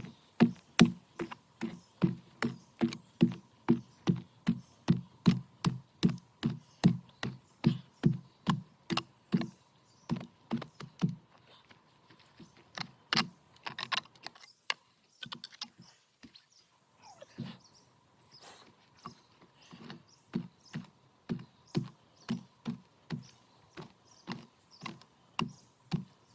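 Garden hoe chopping into wet soil, a steady run of dull strokes at about two a second. The strokes stop for a few seconds about halfway through, then start again more weakly.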